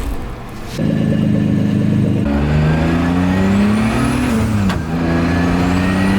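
Turbocharged BMW E36 accelerating hard. The engine note climbs, drops at a gear change a little over four and a half seconds in, then climbs again, with a high whistle rising above it as the revs build.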